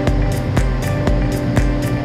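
Background music with a steady drum beat and sustained tones.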